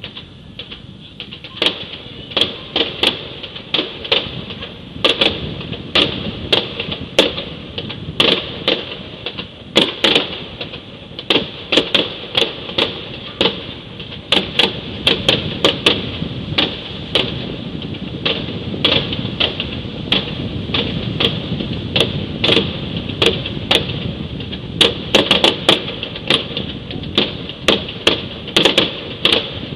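Distant fireworks going off: an irregular string of sharp bangs and pops, one to three a second and sometimes in quick clusters, over a low rumble.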